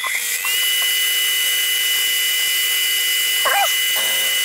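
Sieg X2 mini mill spindle motor spinning up with a rising whine at the start, then running steadily while the end mill cuts the aluminium plate. The plate is guided around steel pins to mill a radius. About three and a half seconds in, a brief wavering squeal sounds over the steady whine.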